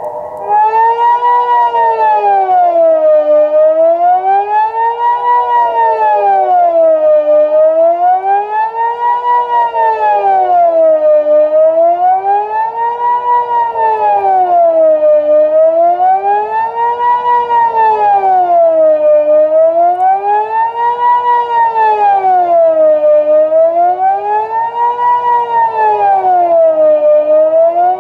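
Civil defence siren sounding the Swiss general alarm: a loud tone that rises and falls smoothly, about one full swing every four seconds, getting louder about half a second in.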